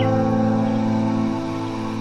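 Background music: held chords that slowly fade.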